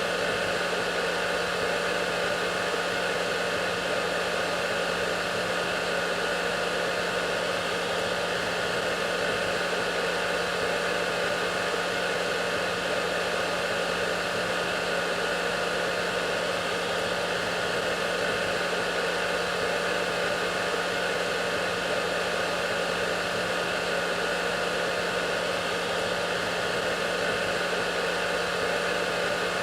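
Hair dryer running steadily: an even rushing blow of air with a constant hum, no change in pitch or level.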